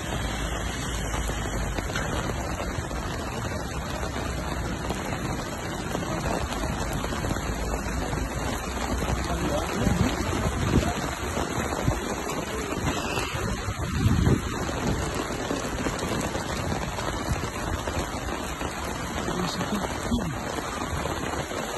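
Steady rain with wind, a continuous hiss. A low wind rumble on the microphone fades after the first few seconds, and there are a couple of louder bumps about halfway through.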